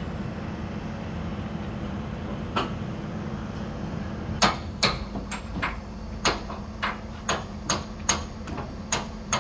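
Hammer striking metal in a steady rhythm of about two to three blows a second, starting about four seconds in after a single knock, as parts of a fairground ride are knocked into place. A steady low mechanical hum runs underneath.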